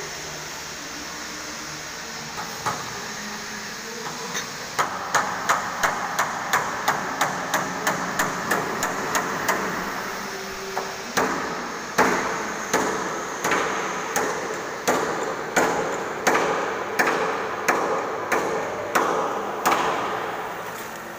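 Hammer striking metal: a quick run of blows about three a second, a short pause, then slower, heavier blows about every 0.7 seconds.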